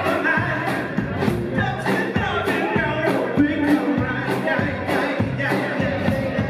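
Live rock and roll band playing with a male lead vocal over a steady drum beat of about three hits a second.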